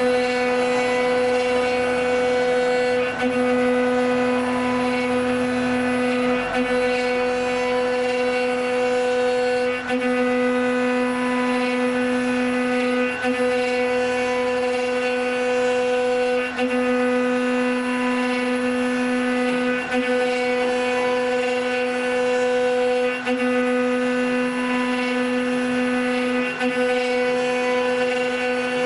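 CNC wood-turning machine's router spindle running at a steady high whine while it machines a wooden stair baluster turning on the rotary axis. The sound dips briefly about every three seconds.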